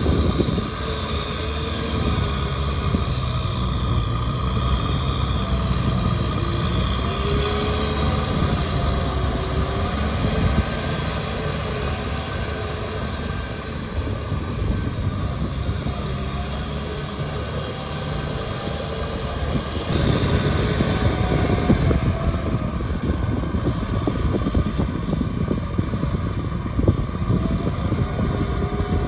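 Kubota M6040SU tractor's diesel engine running under load while its rear rotary tiller churns a wet paddy field. The engine note wavers up and down, and it gets louder about two-thirds of the way through.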